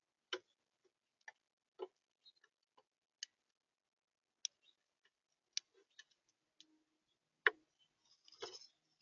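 Birds pecking at seed on a feeder: irregular sharp taps and clicks, a dozen or so spaced up to a second apart. The loudest comes about seven and a half seconds in, followed by a short scratchy flurry.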